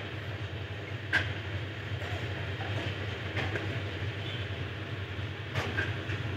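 Tractor engine running at a steady low pitch as it tows a loaded trolley over rough ground, with the trolley rattling and two sharp metal clanks, about a second in and near the end.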